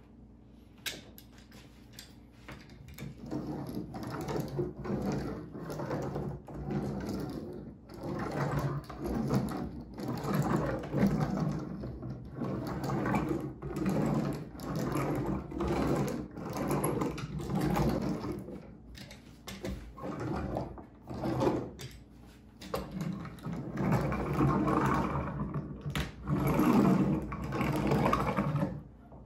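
Long-handled rubber laminate roller rolled hard back and forth over a black sheet on a particleboard panel, a rumbling that swells with each stroke, about one stroke a second, starting about three seconds in after a single click.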